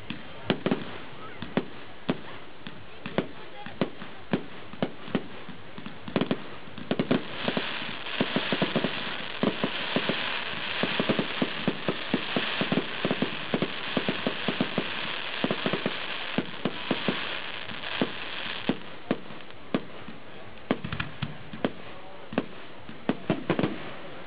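Fireworks going off: a rapid, uneven series of bangs from bursting shells. From about seven seconds in until near nineteen seconds, a dense hissing crackle runs under the bangs.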